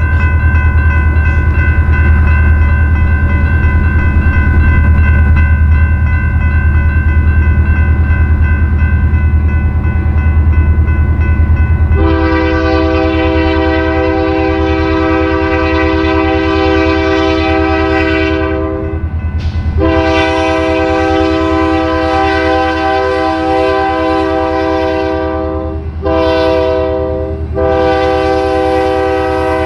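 Diesel locomotive horn sounding the grade-crossing pattern as the train approaches: a long blast, a second long blast, a short one, then a final long blast. Before it, fainter steady ringing from the crossing signal over a low rumble.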